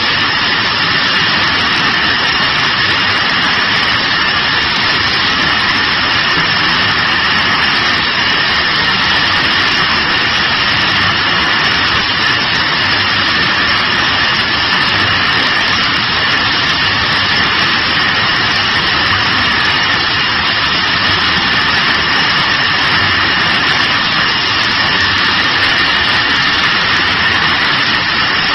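Automatic carton packing machine and its bottle conveyor running: a loud, steady machine noise with a constant high whine and no distinct knocks.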